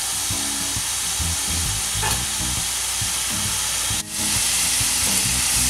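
Chicken pieces frying in their jerk marinade in a stainless steel sauté pan, a steady sizzle. The sound breaks off for an instant about four seconds in.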